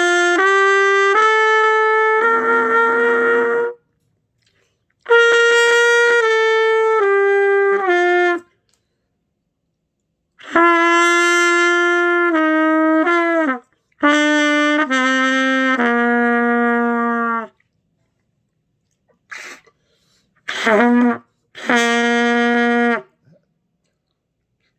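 Trumpet playing short stepwise runs of held notes up and down a scale, in about five phrases separated by brief pauses. One note about two to three seconds in sounds rough and airy, and a couple of short blips come just before a last low held note.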